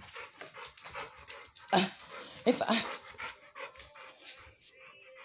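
A dog panting rapidly in quick short breaths, with two brief louder sounds about two seconds in.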